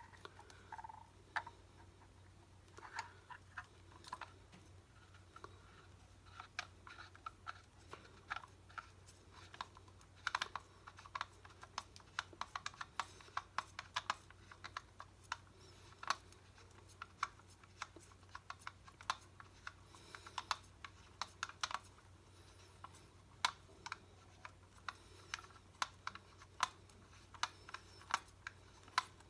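Small irregular metallic clicks and light scrapes of Mamiya-Sekor lens parts being handled, with the cleaned lens element being screwed back into its barrel.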